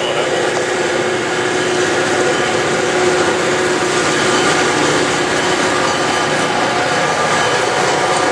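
CSX freight train's diesel locomotives approaching and drawing alongside: a steady, loud engine drone that grows a little louder as the lead unit arrives near the end.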